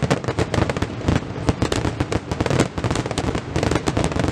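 Aerial fireworks shells bursting in a rapid, unbroken barrage, many bangs and crackles a second.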